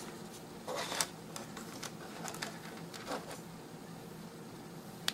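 Faint handling sounds of a spring-loaded battery clamp being opened and clipped onto a wire lead: light rustles and a few small clicks, with one sharp click near the end.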